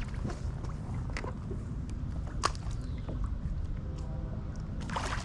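Steady low rumble of water and wind at a microphone sitting right at the water's surface, with scattered faint clicks and one sharper click about two and a half seconds in.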